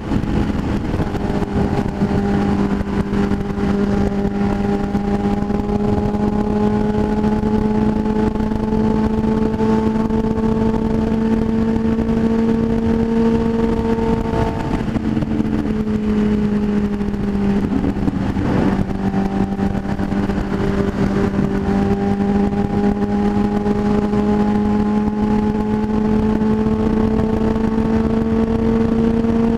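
Motorcycle engine running at steady highway cruise, recorded on the moving bike with wind noise over the microphone. Its note climbs slowly, drops about halfway through, then climbs again.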